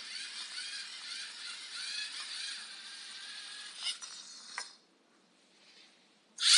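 LEGO Mindstorms EV3 robot's electric motors whirring through their plastic gears as it drives and works its arm, a whine that wavers in pitch, with two clicks about four seconds in. The motors stop about a second later, then start again loudly right at the end.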